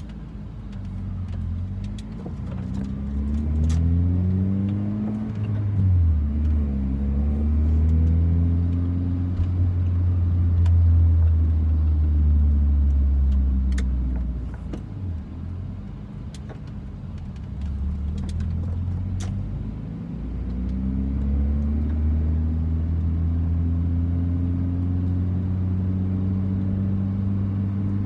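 1991 Honda Prelude's four-cylinder engine, heard from inside the cabin while driving. It pulls up through the gears of its manual gearbox, its pitch climbing and then dropping at each shift. It eases off about halfway through, picks up again, and settles into a steady cruise near the end.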